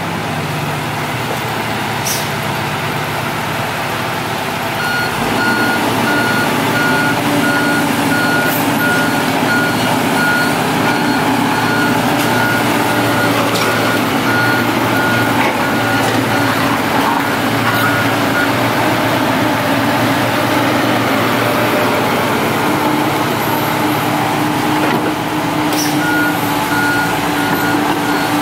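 Diesel engine of heavy machinery running steadily while a back-up alarm sounds an even run of high beeps, starting about five seconds in, stopping, and starting again near the end.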